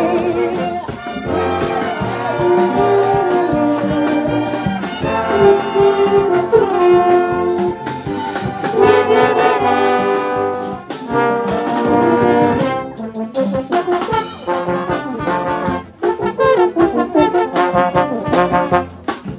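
A brass and wind band playing an instrumental passage, with the trombones out in front.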